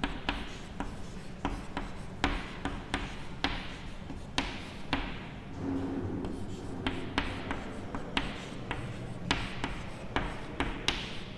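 Chalk writing on a blackboard: irregular sharp taps and short scratching strokes as words are chalked out.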